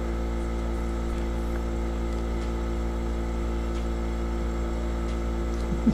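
Steady machine hum: a deep low drone with several steady tones above it, unchanging in pitch and level.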